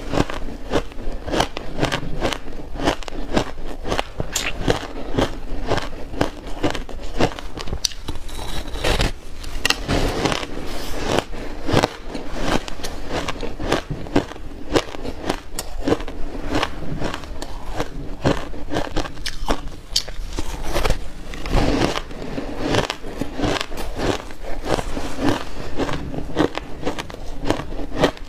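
Shaved buckwheat ice being bitten and chewed: a steady run of crisp crunches, several a second.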